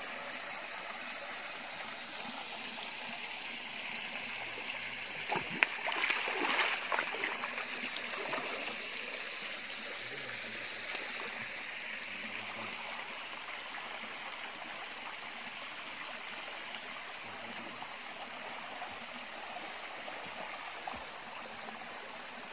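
Water of a small waterfall running steadily over rocks, a thin flow with little water in it. A louder stretch of splashing comes about five to eight seconds in.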